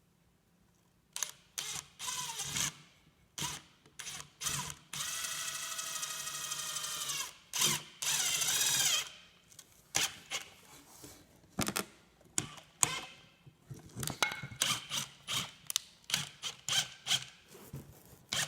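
Power drill driving a screw into wood, running steadily in two spells of about two seconds each, the second louder, with its pitch bending near the end. Clicks and knocks from handling the wood and screws come before and after.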